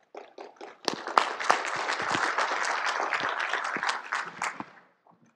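Audience applauding: a few scattered claps, building to full clapping about a second in, then dying away near the end.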